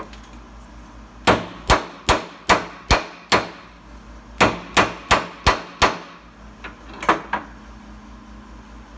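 Hammer tapping a U-joint bearing cap into the yoke of a Polaris Ranger driveshaft, driving it in the rest of the way. The blows come as six sharp metallic strikes, a short pause, five more, then two or three lighter taps.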